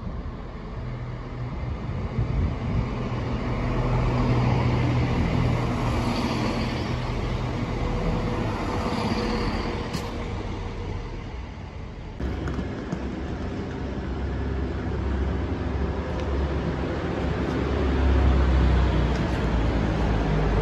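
A CrossCountry Class 170 Turbostar diesel unit running into the platform, its engines and wheels rumbling, with a thin squeal for a few seconds before a cut. Then an East Midlands Railway Class 222 Meridian diesel unit's engines running steadily, growing louder near the end.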